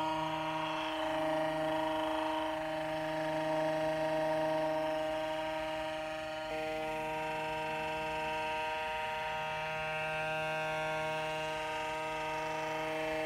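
Andis ProFoil Lithium 17150 foil shaver's rotary motor switching on and running steadily. Its tone changes slightly about six and a half seconds in.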